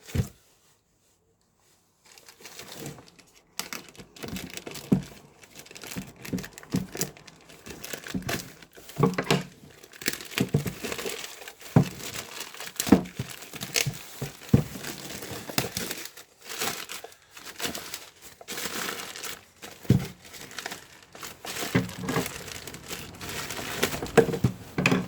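Packaging being opened by hand: irregular crinkling and rustling of plastic wrap and cardboard, with scattered taps and some tearing, starting about two seconds in.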